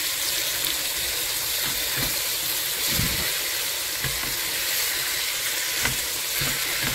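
Paprika-seasoned chicken thighs sizzling steadily as they brown in oil and butter in a stainless steel pot, with a few knocks as tongs turn the pieces.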